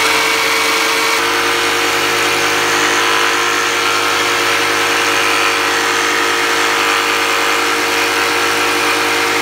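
Rockwell BladeRunner X2 tabletop saw running steadily, its narrow T-shank jigsaw blade cutting through a wooden cutting board. A steady motor hum mixes with the high-pitched buzz of the blade in the wood.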